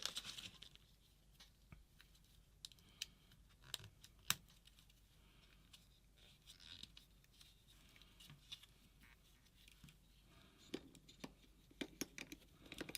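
Faint scattered clicks and light scraping of small parts being handled as a battery cable and battery are pressed into place in a paintball marker's grip frame, with a quick run of clicks near the end.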